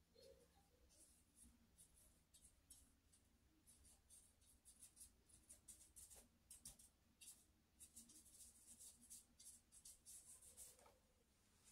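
Faint, quick scratchy strokes of a paintbrush across a painting board, coming in short runs of several a second, thickest in the second half and stopping near the end.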